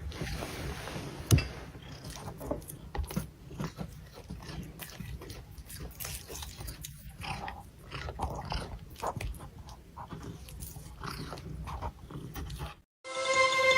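A cat gnawing at something hard, with irregular crunching clicks. Near the end it cuts off to a moment of silence, then music starts.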